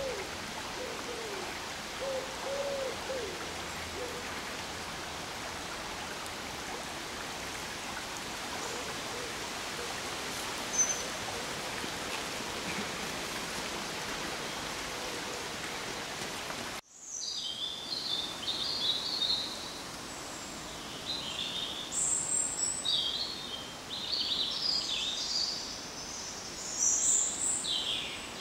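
A steady rushing noise, with a few low hooting calls in the first few seconds. After a sudden break about two-thirds of the way in, small birds sing and chirp in quick high phrases.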